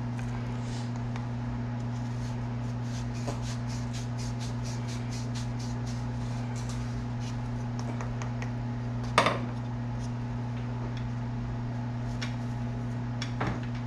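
A reamer rasping out the bore of a fishing-rod handle in quick repeated scraping strokes, about three a second, enlarging the hole until it fits snugly on the blank. A sharp clatter sounds about nine seconds in, a few light clicks come near the end, and a steady low hum runs underneath.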